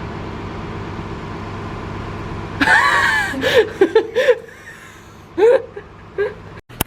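A steady low engine hum, then from about two and a half seconds in, short bursts of laughter and exclamations from voices. The sound drops out briefly near the end.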